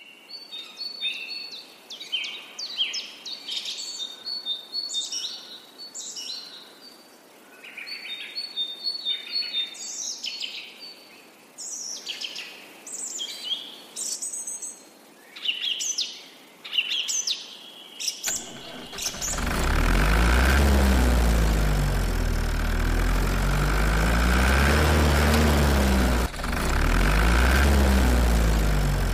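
Birds chirping and singing in short repeated phrases. About eighteen seconds in, a loud tractor engine sound starts and runs steadily, its pitch rising and falling in slow waves, with a brief dip near the end.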